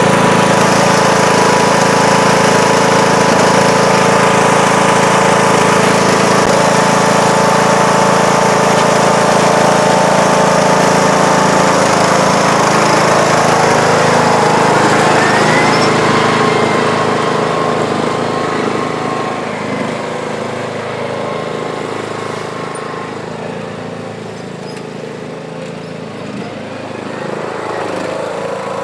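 John Deere D105 lawn tractor's single-cylinder engine running steadily after sitting all winter, then fading as the tractor drives away about halfway through and growing a little louder again near the end.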